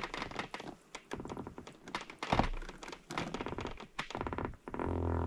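A run of knocks and taps from handling fishing gear as a pike tip-up is checked and its line pulled in by hand, with one heavier thunk about two seconds in. A short low hum comes near the end.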